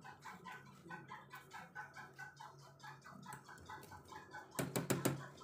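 A faint, rapid series of short calls, about five a second. Near the end comes a brief burst of sharp metallic clatters from a steel ladle stirring in a pot of boiling spinach.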